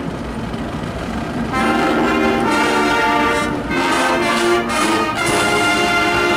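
Marching band of brass, saxophones, flutes and snare drums playing sustained chords. The opening second and a half is thinner, and the full held chords come back in after it, with brief breaks between phrases.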